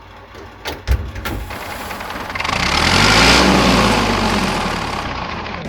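A vehicle engine running, growing louder to a peak midway and then fading, with its pitch rising and falling, as when it drives past. A few sharp knocks come about a second in.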